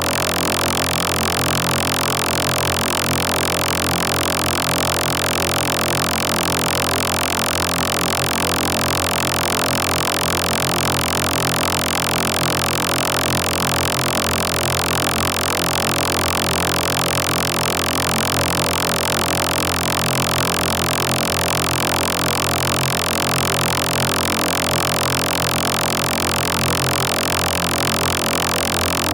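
A steady, dense electronic drone made of many held tones over a buzzing hiss, unchanging throughout, from a pitch-processed sound effect.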